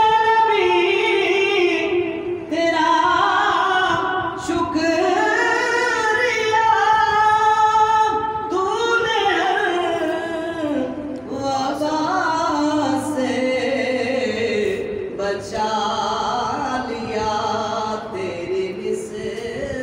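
A man singing a naat (devotional recitation) solo into a microphone, with long drawn-out notes that slide and waver in pitch.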